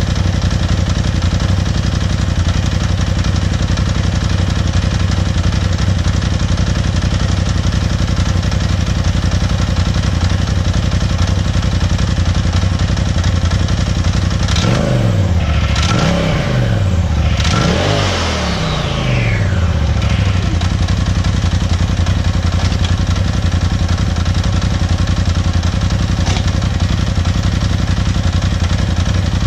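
Polaris RZR XP Turbo's turbocharged twin-cylinder engine idling steadily. It is revved briefly a few times about halfway through, the pitch rising and falling, then settles back to idle.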